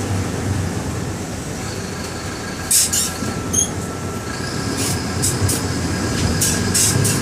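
Mercedes-Benz OM-924 LA four-cylinder turbo diesel of an OF-1721 bus running with a low steady drone, heard from inside the bus. Short sharp rattles and clicks come about three seconds in and again several times near the end, as the drone grows a little louder.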